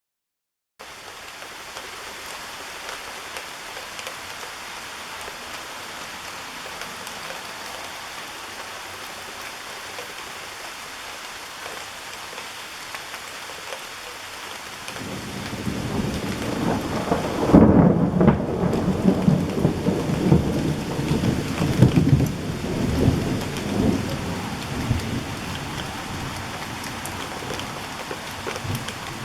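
Steady rain falling, then about halfway through a long peal of thunder that swells, is loudest a few seconds later, and rumbles on in waves over the rain to the end.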